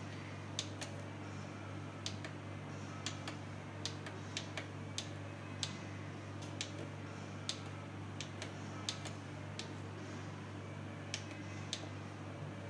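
Short sharp clicks, one or two a second at uneven spacing, from the control-panel buttons of an LED batten light being pressed to step through its colour modes, over a steady low hum.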